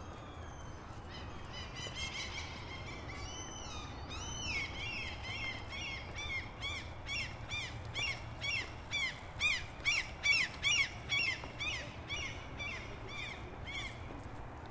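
A bird calling: a long series of quick repeated high notes, about two a second, growing louder toward the middle and fading near the end.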